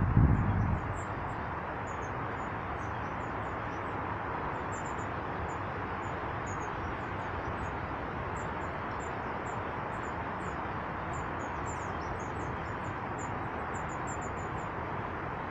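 Small birds giving many short, high chirping calls throughout, over a steady rushing background noise. A loud low rumble fades out within the first second.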